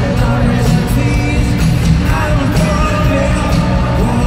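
Live rock band playing loud through a concert PA, heard from the crowd: a male lead singer sings over electric guitars and a steady drum beat.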